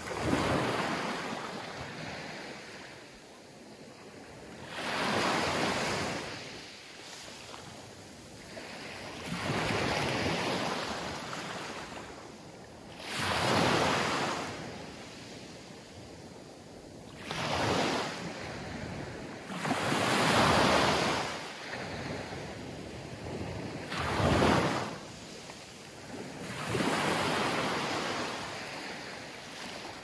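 Small Mediterranean waves breaking and washing up a sandy, pebble-strewn beach, in about eight swelling surges, one every three to five seconds.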